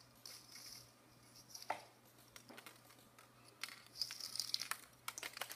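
Faint rustling and light clicking of plastic drinking straws and thin wire being handled, as the wire is twisted and pulled tight around a straw-and-bead pentagon. The rustles come in short scattered bursts, busiest in the second half.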